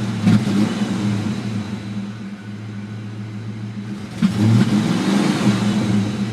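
Ford Mustang 5.0 V8 idling, its engine speed rising and falling back twice, about a third of a second in and about four seconds in. The car's fuel pump is barely working, which the owner found to cause its idle surge.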